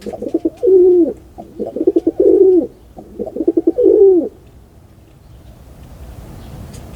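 A pigeon cooing: about four low phrases, each a quick stutter running into a long arched note, which stop about four seconds in and leave a faint low hiss.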